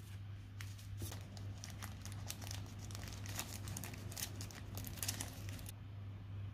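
Crinkling of a thin wrapper as small plastic colour filters are unwrapped from it by hand: a dense run of crackles that stops about a second before the end.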